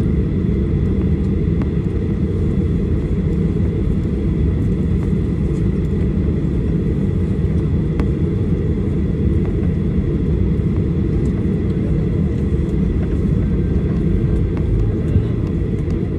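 Cabin noise of a Boeing 737-800 on the ground after landing, with its CFM56-7B engines running. A steady low rumble with a thin, steady high whine over it.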